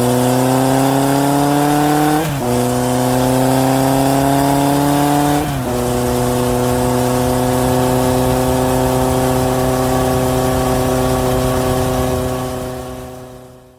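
Motorcycle engine accelerating through the gears: the exhaust note rises in pitch and drops back at two upshifts, about two and five seconds in, then holds a steady pitch and fades away near the end.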